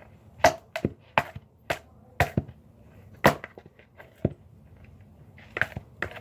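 A series of irregular sharp clicks and knocks, the loudest about half a second and about three seconds in, coming faster near the end.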